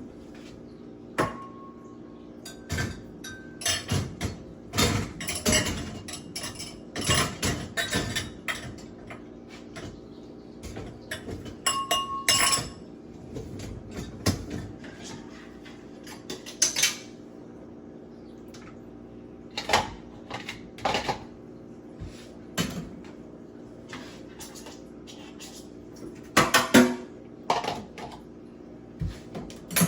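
Dishes and cutlery clinking and clattering in irregular bursts as they are handled and stacked, over a faint steady hum.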